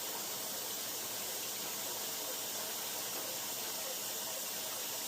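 Steady hiss of water running into an Amana Tandem 7300 washer's tub during its fill.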